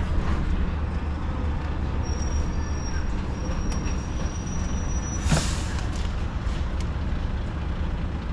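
DAF XF 480 truck's diesel engine running steadily at low speed, heard from inside the cab. About five seconds in comes one short, sharp hiss of air, typical of the truck's air brakes.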